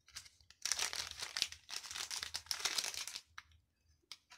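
Clear plastic zip-lock bag crinkling in bursts for about three seconds as it is opened and a charger cord pulled out of it, followed by a couple of light clicks near the end.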